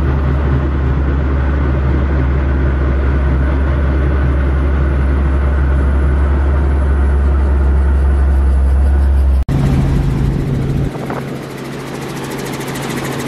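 Robinson R44 helicopter's piston engine and rotor running on the ground as the blades spin up, a loud steady low hum. About nine and a half seconds in it cuts abruptly to the helicopter in flight, a steady, slightly quieter rotor and engine sound with wind in the doorless cabin.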